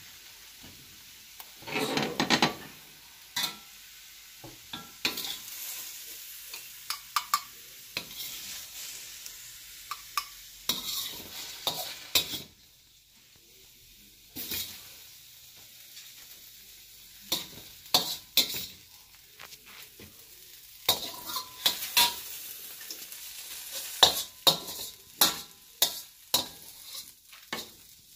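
Spatula scraping and tapping against a stainless steel wok in irregular strokes as cooked mushrooms are scooped into a glass dish, with the hot pan sizzling between strokes.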